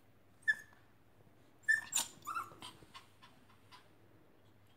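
Lhasa apso puppy whimpering: a short high whine about half a second in, then two or three more in the middle, with a few light clicks between.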